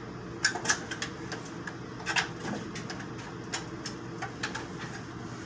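A dog's claws and paws clicking and scrabbling on the rungs of a stepladder and over the tailgate of a truck bed as it climbs up. There is a run of irregular sharp taps, loudest about half a second in and again around two seconds in, over a steady low hum.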